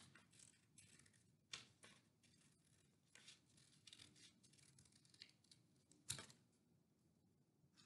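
Scissors cutting through folded purple construction paper: a string of faint, short snips, with a sharper snip about six seconds in.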